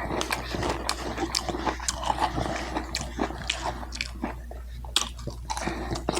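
A person chewing and biting food close to the microphone, with irregular wet mouth clicks and smacks.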